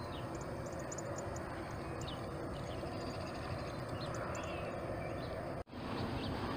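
Small birds chirping, many short high calls scattered over a steady low outdoor background hum; the sound cuts out for an instant near the end and resumes.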